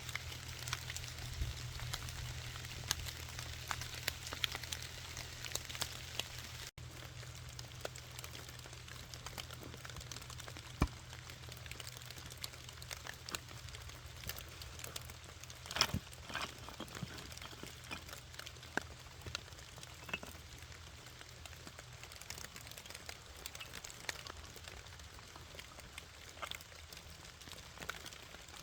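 Wood campfire crackling in the rain: scattered sharp pops and clicks over a soft hiss, mixed with the patter of raindrops.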